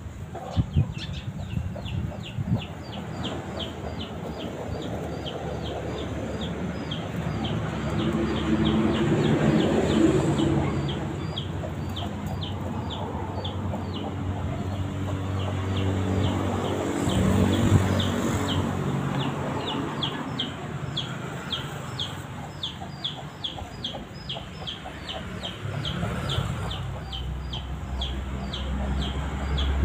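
Outdoor yard ambience: a high chirp repeating evenly about two or three times a second throughout, with animal calls PANN takes for clucking fowl and a low motor-like hum that swells through the middle. A louder sound starts right at the end.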